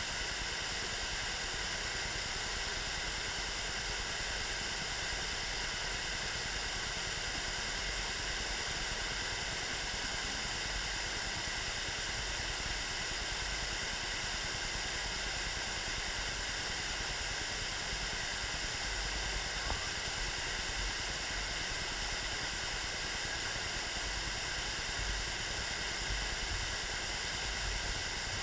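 Ubagataki waterfall: a steady, unchanging rush of falling water.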